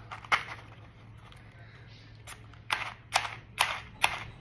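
Scissors snipping: one sharp snip just after the start, then from about two and a half seconds in a regular run of snips, about two a second.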